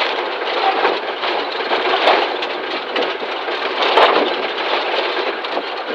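Rally car at full speed on a gravel stage, heard from inside the cabin: a loud, steady rush of engine and gravel road noise, with a few sharper knocks about two and four seconds in.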